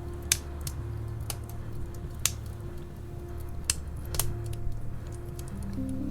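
Wood fire crackling in a fireplace: irregular sharp pops and snaps, half a dozen or so, over a steady low rumble of the flames. Soft sustained music tones play underneath, with new notes coming in near the end.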